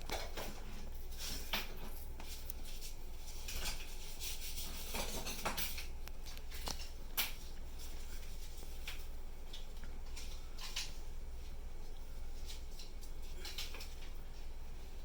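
Scattered scrapes and clicks of a metal tool against a hard surface, over a steady low hum.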